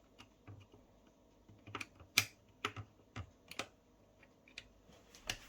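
Small metal parts of a door lock mechanism clicking and tapping as a piece is fitted into the lock case: sharp, irregular clicks, the loudest about two seconds in.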